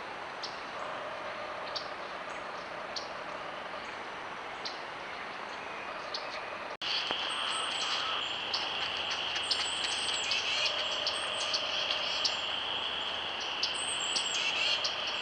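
Small birds chirping in short, repeated high calls over a steady hiss. About seven seconds in, the sound cuts abruptly to another recording: a steady high-pitched whine joins, and the chirps come more often, with a few quick gliding notes.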